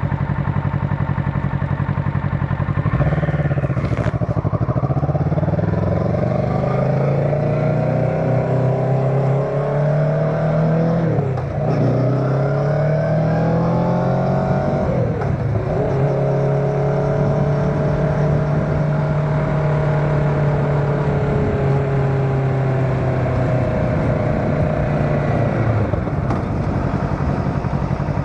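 Motorcycle engine heard from the rider's seat. It runs steadily at first, then about three seconds in pulls away, rising in pitch through the gears with two shifts near the middle. It holds a steady cruise and eases off near the end. A single sharp click comes early on.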